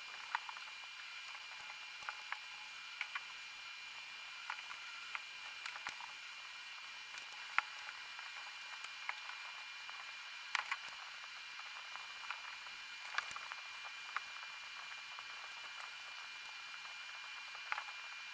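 Faint sounds of a small wheeled hobby robot crawling over paint-covered paper and being nudged by hand: scattered soft clicks and taps over a steady hiss with a thin, steady high whine.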